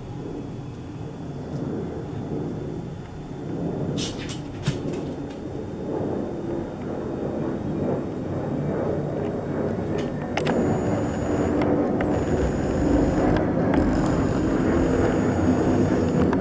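Low rumble of a twin-engine jet airliner flying high overhead, growing steadily louder. A few sharp clicks come about four and ten seconds in.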